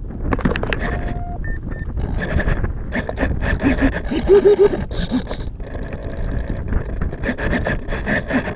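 Wind buffeting the microphone of the aircraft's onboard camera, with handling scrapes and clicks and a few short beeping tones about a second in.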